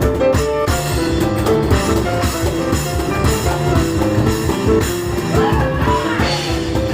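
Grand piano and cajon playing a fast, driving instrumental live, with held and repeated piano notes over a dense beat of low cajon hits.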